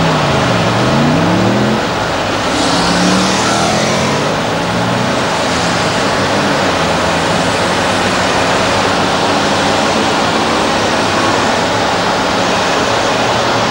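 Liebherr R962 Litronic hydraulic excavator's diesel engine running under load, its pitch dipping and climbing again as the hydraulics dump the bucket and swing the arm, with a brief hissing rush about three seconds in.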